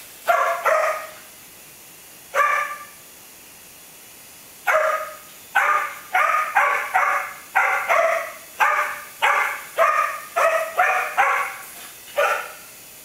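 A dog barking up at a small toy helicopter flying overhead. There are two barks at first and another about two seconds later, then a quick run of about a dozen barks, roughly two a second.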